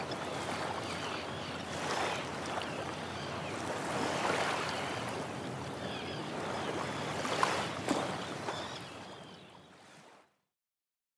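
Small waves lapping and splashing, surging every two seconds or so, then fading away about three-quarters of the way through.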